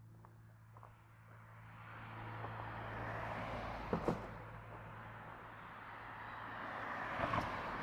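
Road traffic: cars passing on a street in two swells of engine and tyre noise, with a few sharp footstep ticks close by.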